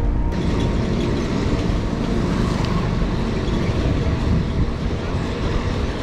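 Steady rushing wind and road noise on a bicycle's action camera as the loaded touring bike rolls along a paved road with traffic. The sound changes suddenly a moment in, from a more tonal sound to the rushing.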